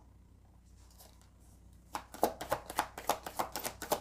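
Tarot cards being shuffled and handled, a quick run of sharp slaps and clicks starting about halfway through after a quiet first half.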